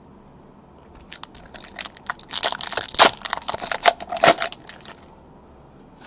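Trading-card pack wrapper crinkling and tearing as it is opened, a dense run of sharp crackles lasting about four seconds.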